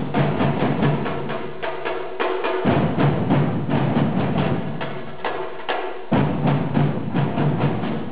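Percussion group playing drums with quick, dense strokes and sharp wood-block-like hits. A deep low drum drops out briefly twice and comes back in.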